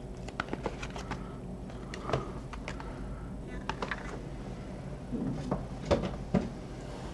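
Handling of boxed packaging and the cardboard shipping box: scattered light clicks, taps and rustles, with a few louder knocks near the end as the box is rummaged through.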